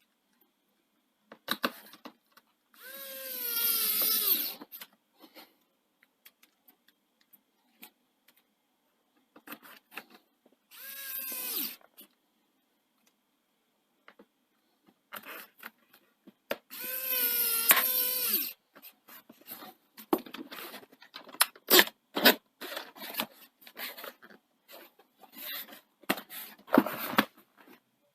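Small electric screwdriver driving the back-cover screws of a Dell Vostro 3501 laptop in three short whirring runs, its motor whine bending in pitch during each run. Sharp clicks and knocks follow in the last several seconds.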